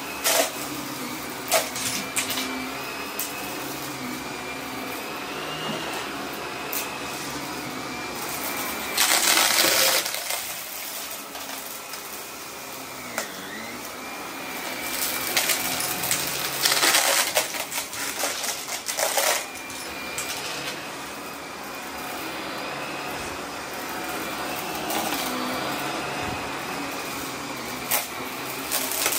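Vacuum cleaner running steadily over carpet, its motor whine wavering and dipping in pitch. It is broken by loud rattling bursts, about nine seconds in and again from about sixteen to nineteen seconds in, as confetti is sucked up.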